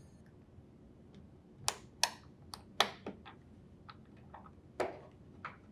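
Utility knife blade prying a worn hinge bushing out of its socket in a refrigerator door: an irregular run of small sharp clicks and scrapes, the louder ones clustered from about two to three seconds in and once more near the end.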